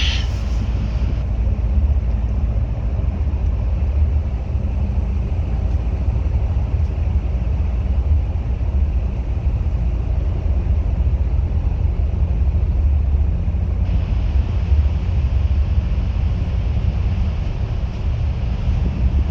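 Bus running at a steady speed: a constant low rumble of engine and road noise. A brief high-pitched sound right at the start.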